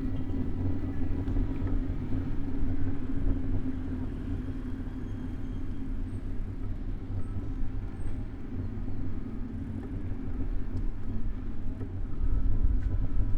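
City road traffic heard from a moving bicycle: car engines running nearby, with a steady low rumble.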